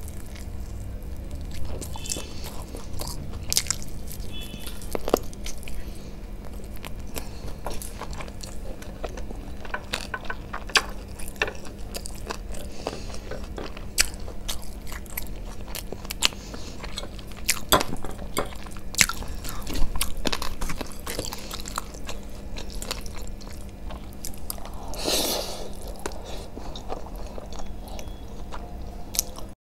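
Close-miked eating sounds: biting and chewing a spicy fried chicken lollipop and spicy Korean noodles, with many wet mouth clicks and crackles. A louder noodle slurp comes near the end.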